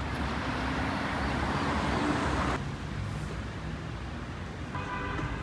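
Street traffic noise. It changes suddenly about two and a half seconds in, and a short horn-like toot sounds near the end.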